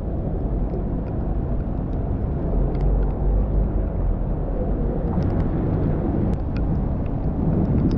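Steady low rumble of city traffic on a wet street, with a few faint scattered ticks.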